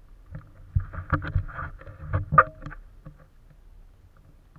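Knocks, clicks and scraping from a pole-mounted action camera being handled and swung round on its mount, a burst of sharp knocks lasting about two and a half seconds with the loudest knock near the end.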